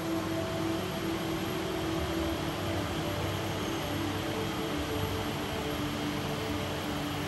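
Steady ambient noise of a large enclosed atrium: an even hiss with a low hum that shifts slightly in pitch about halfway through.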